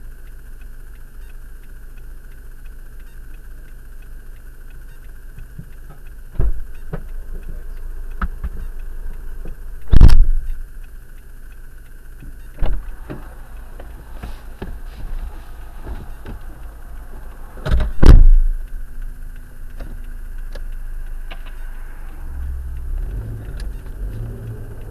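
Car engine idling steadily, broken by several sharp thumps and knocks. The two loudest come about 10 and 18 seconds in.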